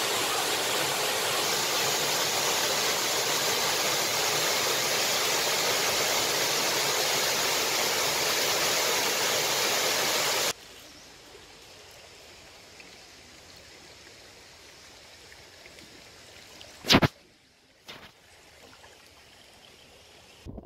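Waterfall rushing loudly and steadily, cutting off abruptly about halfway through. Faint running water from a shallow stream follows. Partway through this quieter part there is one sharp, loud click, and a smaller one about a second later.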